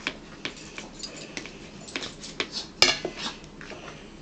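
Eating utensils clinking and scraping against a plate and a plastic food tray: a quick, irregular run of light clicks, with one sharper clink nearly three seconds in.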